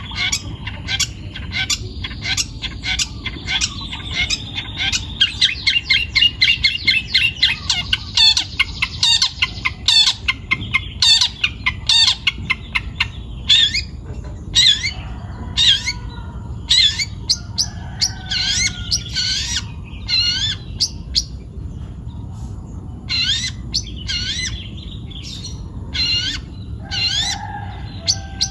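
Young wild-caught long-tailed shrike (cendet) singing: a fast rolling run of chattering notes, then a string of loud, sharp calls repeated irregularly.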